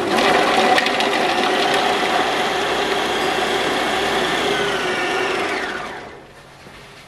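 Food processor motor running at speed, its blade chopping onion and garlic in the bowl, for about six seconds; then it is switched off and spins down, its pitch falling as it fades.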